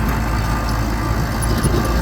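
Bulldozer's diesel engine running steadily with a low rumble.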